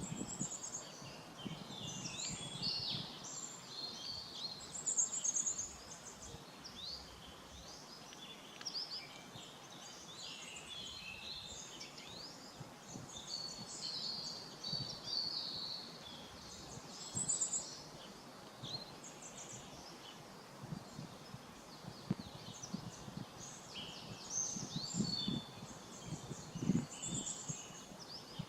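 Several small birds singing and chirping at once, a dense run of short high calls and quick slurred notes, over a faint low rumble.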